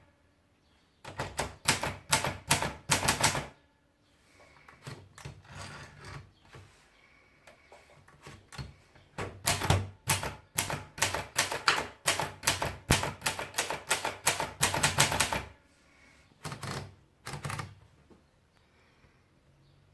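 Neckermann Brilliant Junior typewriter being typed on: keys strike in quick runs of sharp clacks separated by short pauses, with a long dense run in the middle and a few last strikes near the end.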